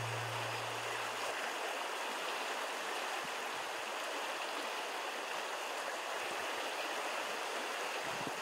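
River water flowing steadily, an even rushing of the current.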